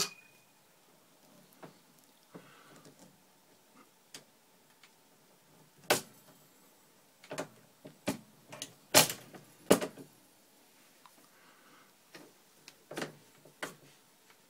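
Scattered sharp clicks and knocks of plastic and metal as shotshell hulls and parts are handled on a MEC Junior Mk V shotshell reloading press. The loudest come about six and nine seconds in, with a quick run of knocks between them and two more near the end.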